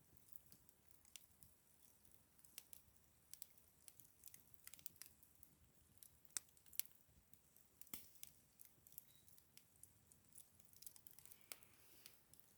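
Campfire crackling: burning wood giving off sharp, irregular pops and snaps over a faint hiss, with two louder pops about halfway through.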